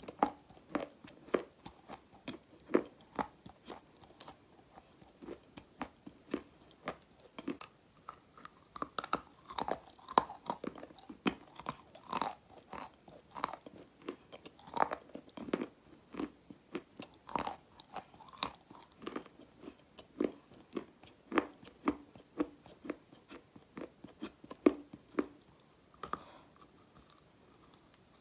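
Close-miked chewing of dry black edible clay: a steady run of short, sharp crunches, a few a second. The clay is dry and brittle.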